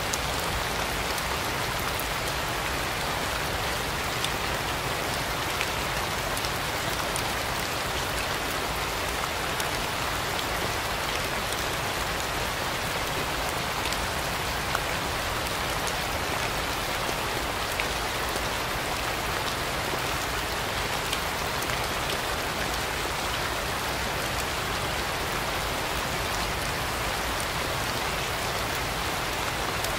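Steady rain falling: an even hiss with individual drops ticking through it, and an occasional slightly louder drop.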